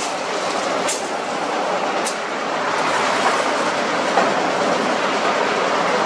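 Machinery in a concrete-tile workshop running with a loud, steady rattle.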